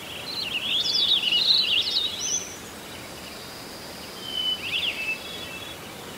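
Small songbirds chirping and twittering in quick high phrases over a steady background hiss. The calls are busiest in the first two and a half seconds and come back briefly about four and a half seconds in.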